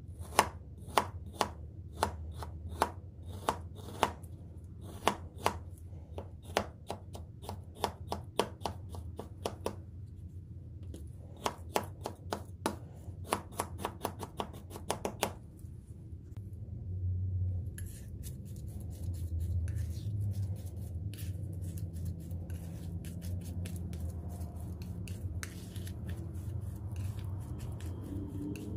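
Metal palette knife chopping into frozen acrylic paint: sharp clicks of the blade striking through the paint onto the hard surface, about two a second, for about fifteen seconds. After that come softer scraping and squishing as the paint is smeared and mixed under the knife.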